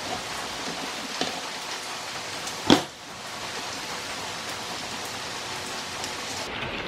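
Ratchet and socket working the lug nuts off a Jeep's spare tire: a faint click about a second in and one sharp metallic clack a little under three seconds in, over a steady hiss.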